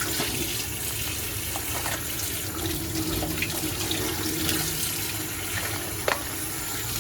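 Water running steadily from a tap into a sink, with a few light knocks and clicks, and cutting off shortly after.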